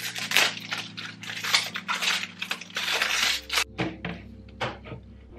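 Plastic bag crinkling and rustling as a clear hard-shell laptop case is pulled out of it, then a few sharp clicks of the plastic case being handled and fitted onto the laptop.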